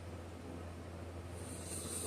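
Sleeper snoring, caught in the pause between snores over a steady low hum. About one and a half seconds in, the next hissy breath begins to rise.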